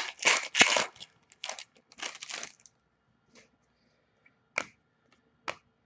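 Foil wrapper of a trading-card pack crinkling and tearing as it is ripped open, in a quick run of rustles over the first two and a half seconds. After that, a few separate sharp clicks as the cards are handled.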